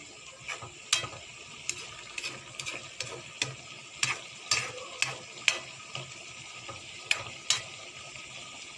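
A spatula knocking and scraping against a wok while stir-frying vegetables and tofu, about fifteen irregular clacks over a steady sizzle. The knocks stop about a second before the end.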